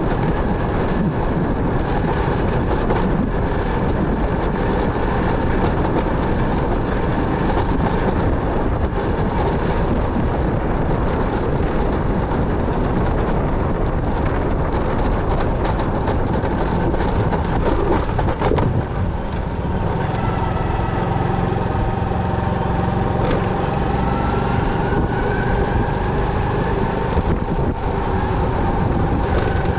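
Motorcycle on the move: steady engine, road and wind noise. From about twenty seconds in, a few steady whining tones join it, one rising slowly.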